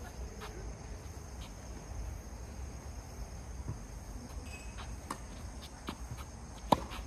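Insects droning steadily with one high, even tone on a tree-lined outdoor court. In the second half come a few faint knocks of tennis play, and near the end one sharp, loud tennis ball strike.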